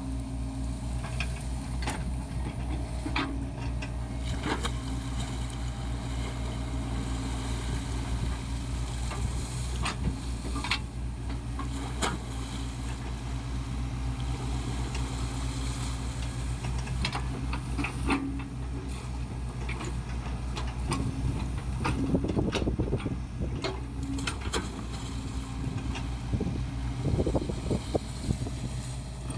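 Sany SY55C mini excavator's diesel engine running steadily, with scattered sharp clicks and knocks. The sound grows louder and rougher twice in the last third.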